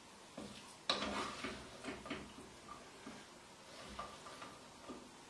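A spoon scraping and knocking inside an aluminium pressure cooker as biryani rice is scooped out, in a few short, irregular scrapes, the loudest about a second in.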